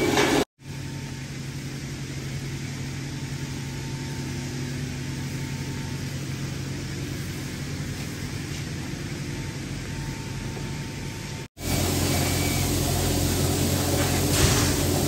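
Steady mechanical hum of a running machine with a noisy hiss over it, cutting out abruptly twice and coming back louder after the second break.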